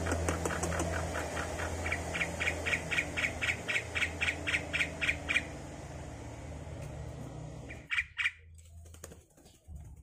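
Javan myna calling in a fast, even string of short notes, about four a second, for some five seconds, then two louder calls about eight seconds in.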